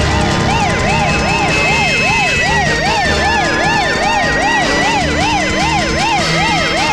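Police vehicle siren in a fast yelp, rising and falling about three times a second, with a second, slower siren tone that slides down and back up in the middle.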